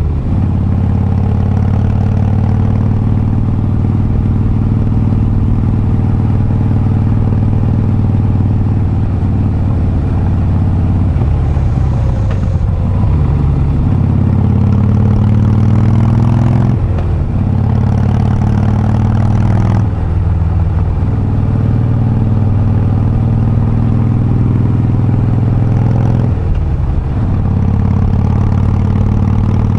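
Harley-Davidson Breakout's V-twin engine running under way; the engine note drops briefly and climbs again about four times, as it does between gear changes.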